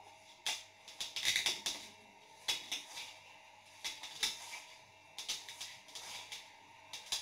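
Fingers mixing whole wheat flour in a black non-stick pan: irregular scrapes and rustles as the hand rubs and stirs the crumbly mixture against the pan, in uneven strokes.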